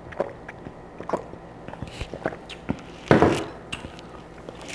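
Close-miked mouth sounds of eating and drinking: small wet clicks from sipping through a straw and chewing. About three seconds in there is one louder, brief thump.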